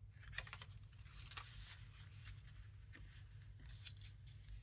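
Paper and card pieces being handled: faint, scattered short crisp rustles and snips, over a steady low hum.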